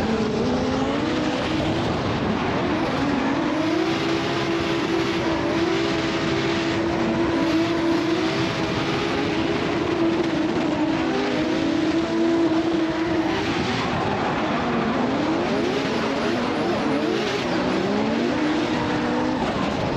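Drift car engine at high revs, its pitch climbing and falling with throttle and shifts, and held steady for several seconds in the middle, over tire noise. Near the end a second engine note crosses it, typical of two cars running in tandem.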